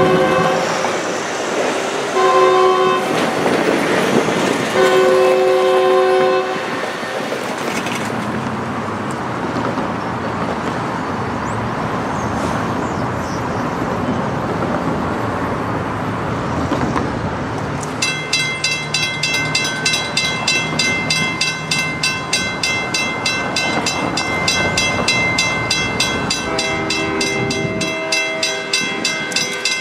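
GP25 #3170's Leslie RS3K three-chime air horn sounding a blast that ends just after the start, a short blast about two seconds in and a longer one around five seconds. A diesel locomotive's engine and passing road traffic follow. From about halfway on, a bell rings rapidly and evenly, and the horn sounds once more near the end.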